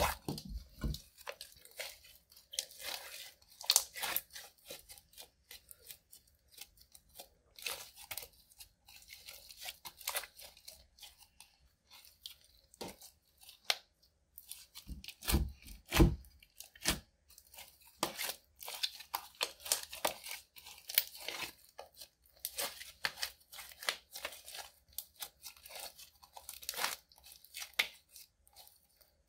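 Clear slime mixed with crushed bronze eyeshadow being kneaded, folded and stretched by hand, giving dense, irregular sticky crackles and pops. A couple of heavier squelches come about halfway through.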